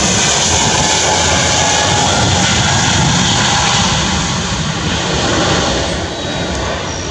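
Airbus A320neo's Pratt & Whitney PW1127G geared turbofan engines at takeoff thrust during the takeoff roll: a loud, steady jet noise that starts to fade about six seconds in as the aircraft pulls away.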